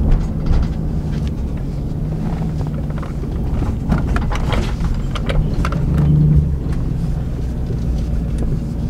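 Car engine running, heard from inside the cabin: a steady low hum that swells briefly about six seconds in.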